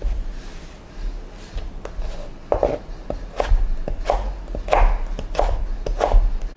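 Chef's knife slicing a peeled cucumber into strips on a plastic cutting board: a dozen or so irregular knocks as the blade strikes the board, starting about a second in.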